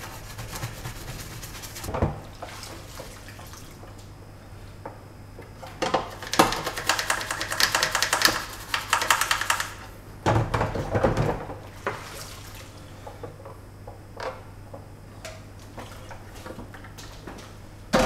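Small toothbrush scrubbing a hard plastic toy part in a sink of soapy water, in rapid strokes that are loudest between about six and ten seconds in. About ten seconds in, water sloshes and splashes as the part is turned over in the sink.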